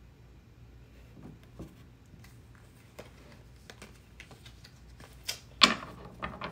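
Tarot cards being handled: a run of light clicks and snaps as cards are slid and pulled off the deck, growing busier, with a couple of sharper snaps about five and a half seconds in as the deck is gathered up.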